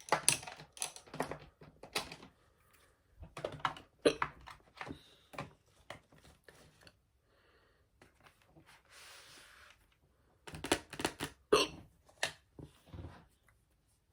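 Makeup containers and tools being handled: bursts of clicking and tapping in three clusters, with a short soft rustle between the second and third.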